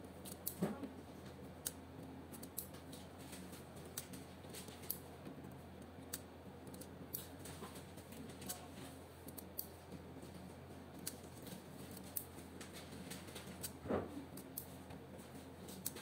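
Fiber optic patch cord connectors being plugged and unplugged by hand, giving faint, irregular light clicks and scrapes, with a sharper click about half a second in and a louder knock near the end, over a steady low hum.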